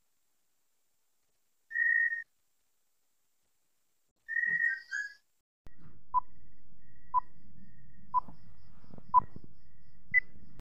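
Intro sound effects: two short high whistle-like chirps, then a film-countdown leader effect. A low crackling hum starts, with a short beep once a second, four in all, and a higher-pitched beep near the end.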